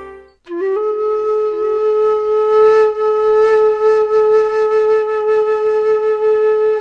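Background music: after a short break, a flute-like wind instrument comes in about half a second in and holds one long, steady note.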